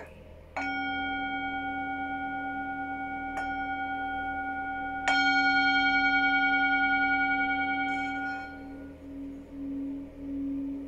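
Metal singing bowl struck three times with a mallet, each strike ringing out as a long tone with several overtones. From about eight seconds in the mallet is run around the rim and the bowl sings a low hum that swells and fades about twice a second.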